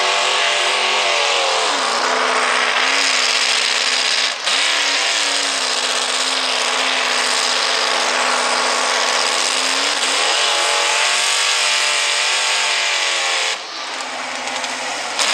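Open-rail mini pulling tractor engine at full throttle dragging a weight-transfer sled, its pitch sagging under the load about two seconds in and climbing again around ten seconds. The sound drops off near the end.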